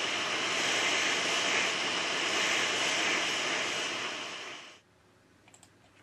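Hot air rework station blowing a steady hiss of air over the circuit board; it stops abruptly near the end, followed by a couple of faint clicks.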